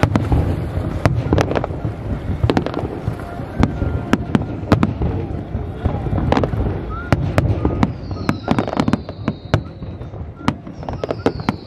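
Fireworks display: a rapid, irregular run of bangs and crackles from bursting shells over a low rumble. Twice in the later part a high whistle slides down in pitch.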